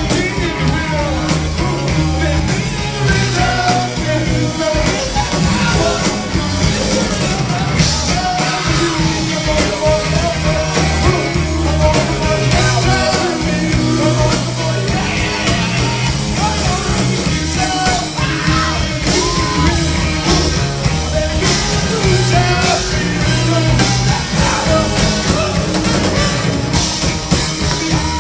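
Rock music with a lead singer over a steady bass and drum beat.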